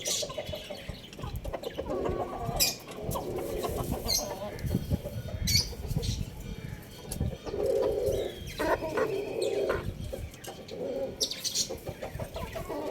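Chickens clucking, with short sharp chirps of small birds throughout, and a longer rooster call about eight and a half seconds in.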